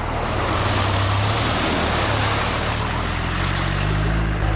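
Safari vehicle fording a shallow river: water rushing and splashing around the wheels over the steady low rumble of its engine. The splashing is loudest through the middle and thins near the end, leaving mostly the engine.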